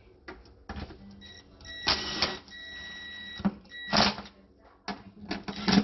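Screws being snugged into a refrigerator's sheet-metal control-board cover: a series of clattering knocks and rattles, with a steady thin whine for about a second and a half around two seconds in.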